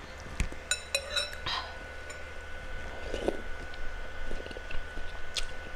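Cutlery clinking against a ceramic bowl, with a quick run of ringing clinks about a second in and a few single taps later, between soft mouth sounds of eating.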